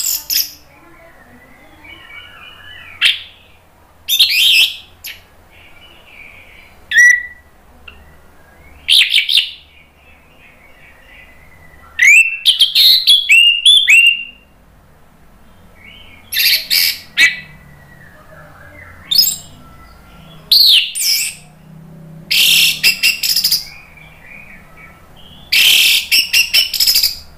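Orange-headed thrush (anis merah) singing loud, high phrases of sharp, quickly changing notes, one every few seconds with short pauses between. Around the middle and again near the end the song breaks into fast stuttering runs of many notes.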